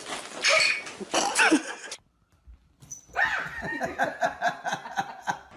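A dog making pitched, wavering cries in two bouts, with a pause of about a second between them.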